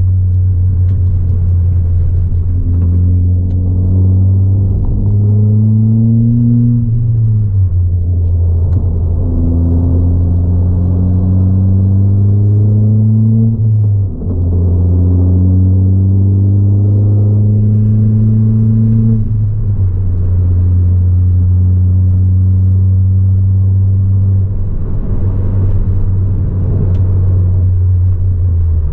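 Ford Fiesta ST180's turbocharged 1.6-litre four-cylinder engine, with a 3-inch aftermarket exhaust and induction kit, heard from inside the cabin under load. The revs climb three times, each climb ending in a sudden drop at a gear change, then hold steady near the end.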